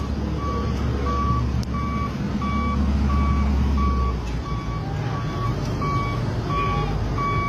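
Dump truck's reversing alarm beeping steadily, about three beeps every two seconds, over the low rumble of the truck's engine. The rumble eases about four seconds in.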